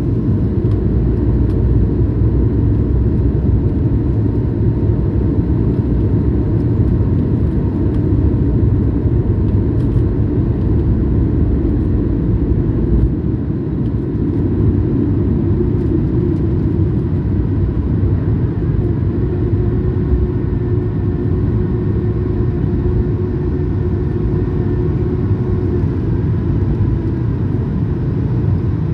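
Jet airliner's engines during takeoff: a steady, loud rumble with faint whining tones above it.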